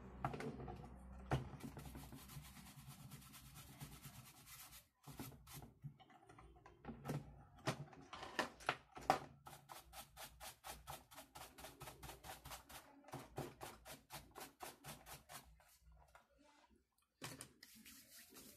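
A small brush scrubbing the solder side of a computer motherboard in quick, repeated short strokes, cleaning away solder paste around the spot where a capacitor was desoldered.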